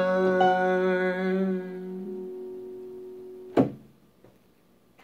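Piano-style keyboard playing the closing notes of a song, the final chord held and fading away. A single thump comes about three and a half seconds in.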